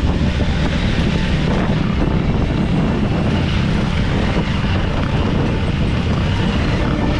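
Off-road motorcycle engine running steadily under load while riding.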